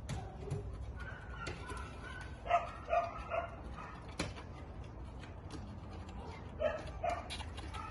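Dog barking in short bursts, three barks in quick succession about two and a half seconds in and two more near the end.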